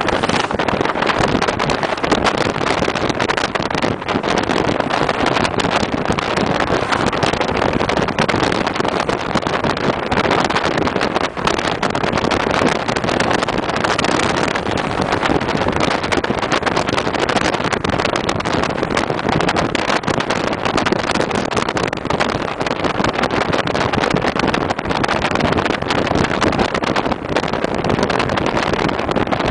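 Car driving along at speed: a steady, loud rush of wind and road noise, with wind buffeting the microphone in fine crackles throughout.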